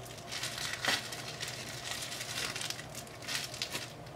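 Plastic bag of herbal powder rustling and crinkling as it is handled, in a series of short crackly rustles, the loudest about a second in.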